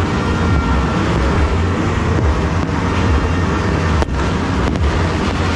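Continuous rumbling din of many firecrackers and fireworks going off across a town at New Year, heard as one dense, steady roar.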